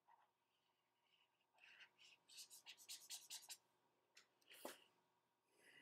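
Faint scratchy strokes of a stylus drawing on a graphics tablet: a quick run of short strokes in the middle, then one sharp click near the end.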